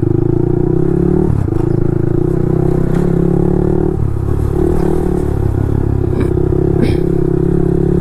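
Motorcycle engine running steadily while riding, its note dipping briefly about a second in and again near the middle before settling back.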